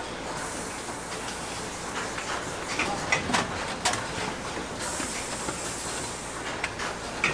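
Automatic carton-packing machinery running: a steady mechanical din with irregular knocks and clacks of cardboard cases and machine arms, bunched a few seconds in. A hiss joins for a couple of seconds about five seconds in.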